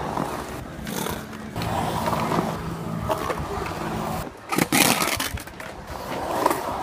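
Skateboard wheels rolling on the concrete of a skate bowl, a steady low hum, with a couple of sharp clacks of the board a little past the middle.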